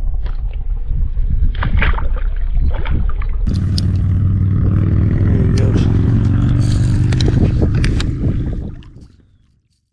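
A low, steady motor hum mixed with scraping and clicking handling noise, which fades out about nine seconds in.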